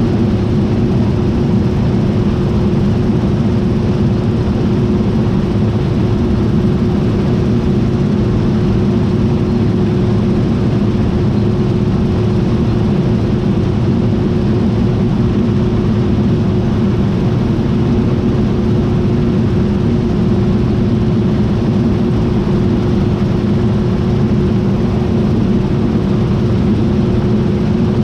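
John Deere T660i combine harvester running steadily under way, a constant low machine hum with a steady whine above it.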